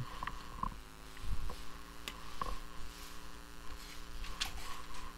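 Quiet room tone with a steady low hum. A few soft clicks and knocks come from a person shifting and reaching across a desk.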